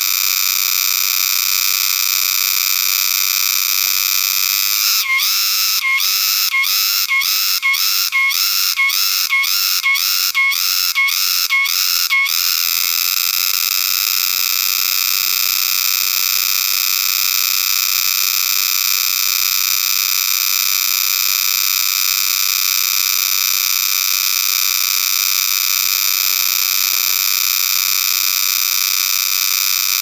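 Cicada singing: a loud, high-pitched, continuous drone that, from about five seconds in, breaks into a pulsing rhythm of roughly two pulses a second for several seconds, then settles back into the steady drone.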